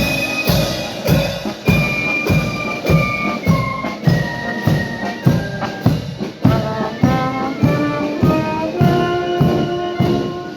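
A brass band with drums playing, a steady beat of about two strokes a second under held brass notes that change pitch.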